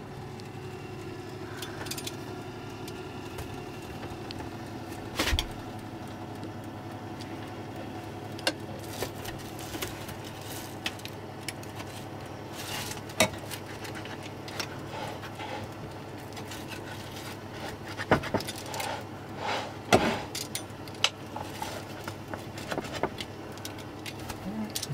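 Wheel pizza cutter rolling through a baked pizza's crust, making repeated crunching, clicking and scraping sounds against the plate, with a louder knock about five seconds in. A steady low hum runs underneath.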